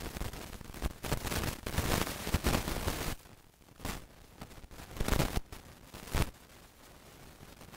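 Irregular crackling and rustling noise, dense for the first few seconds and then in a few short separate crackles.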